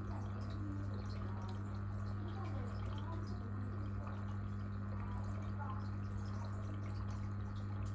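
Aquarium filter pump running with a steady low hum, with water trickling and dripping in the tank.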